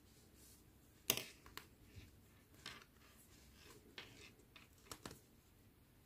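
Faint handling noise of hands tying a knot in crochet yarn: a few soft, scattered clicks and rustles, the loudest about a second in.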